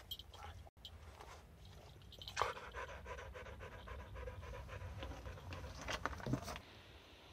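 English pointer panting hard in a pet crate, a quick run of breaths that starts about two seconds in and stops a little before the end.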